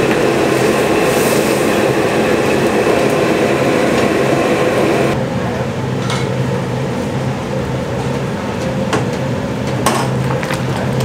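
Commercial restaurant kitchen noise: a loud, steady rushing roar over a low hum, which drops suddenly about five seconds in to a quieter hum with a few sharp metal clanks.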